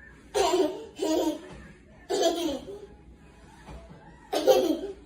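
A baby laughing in four short bursts, the last about four seconds in.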